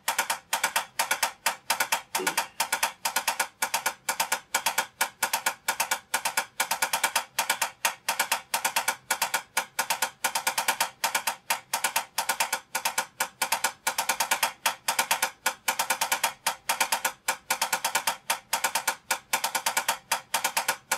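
Wooden drumsticks striking a drum practice pad in a sixteenth-note timing exercise, played straight through without a check pattern. The strokes are crisp, even clicks at about six or seven a second, the rhythm pattern changing every few beats.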